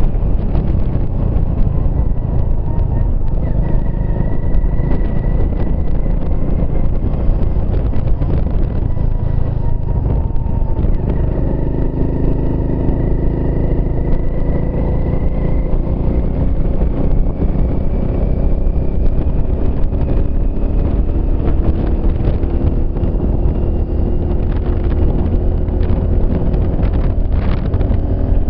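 A 200cc motorcycle riding along a road, heard from the pillion seat: wind buffets the microphone in a constant low rumble, and the engine note sits underneath, drifting slowly in pitch as the speed changes.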